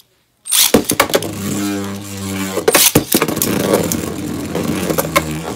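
Two Beyblade Burst tops, Astral Spriggan and Brave Valkyrie, launched into a clear plastic stadium about half a second in. They spin with a steady whir, clacking sharply against each other and the stadium wall many times.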